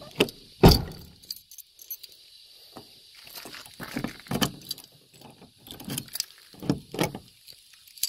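A bunch of keys jangling while a key is pushed into and turned in the lock cylinder of an aftermarket outer door handle on an RA Rodeo / RC Colorado ute, testing that the lock works. There is a loud clack just under a second in, then scattered lighter clicks from the keys and lock.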